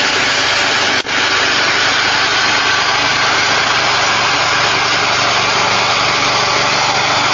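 Honda GX270 single-cylinder four-stroke engine of a Struck Magnatrac RS1000 mini bulldozer running steadily, with a brief dropout about a second in.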